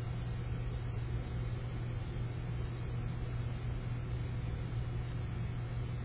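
A steady, unchanging mechanical hum: one constant low tone with an even noise over it.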